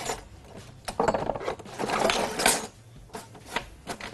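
Kitchen utensils and dishes clattering and knocking as someone rummages through them on a countertop, busiest from about a second in until past the middle.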